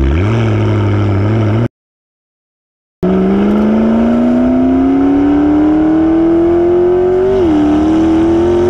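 McLaren P1's twin-turbo V8 exhaust heard right at the tailpipe: a quick rev-up, then a dropout of about a second of total silence, then the note climbing steadily in pitch under acceleration with a brief dip and recovery near the end.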